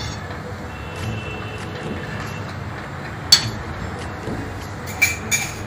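A steel ladle stirring milky dal in a stainless steel pan, over a steady low background noise. About three seconds in the ladle is set down in the pan with one sharp metallic clink, and near the end a couple of quicker clinks come as a small bowl is picked up from the counter.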